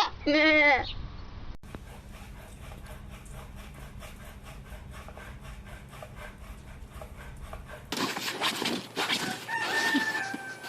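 A goat bleating in the first second; after a cut, a few seconds of low steady hum with faint regular ticks; then, from about eight seconds in, a rooster crowing over a noisy background.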